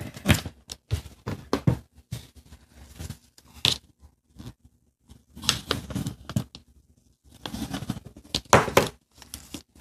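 Sheet of origami paper being folded and creased by hand: irregular crisp rustles and short scrapes as the folds are pressed flat, with a lull around the middle.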